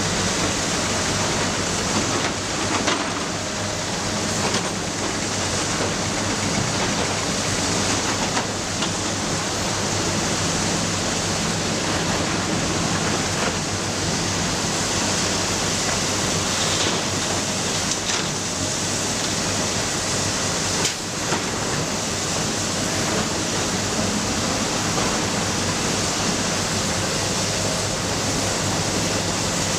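Matador ME315 excavator's diesel engine and hydraulics running steadily under work, a constant loud rushing hiss over a low engine hum, with a few short knocks now and then.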